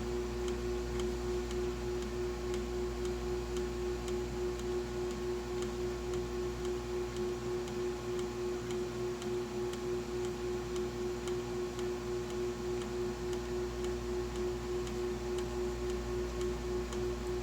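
Small water pump running steadily: a constant hum with a regular ticking pulse about three to four times a second.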